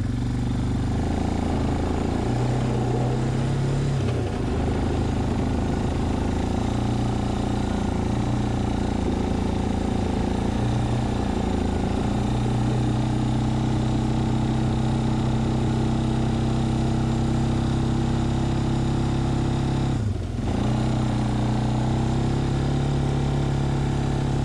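2004 Suzuki Eiger 400 ATV's single-cylinder four-stroke engine running under load as it pushes a plow blade through snow, its note rising and falling with the throttle. About 20 seconds in the engine note drops briefly and climbs back.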